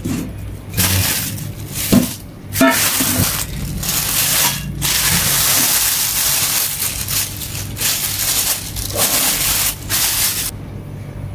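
Running tap water and hands rubbing an old hen's carcass as it is washed; the water cuts off near the end.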